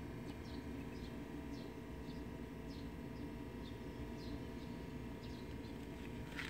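A small bird chirping over and over, short high chirps about twice a second, over a steady low background rumble.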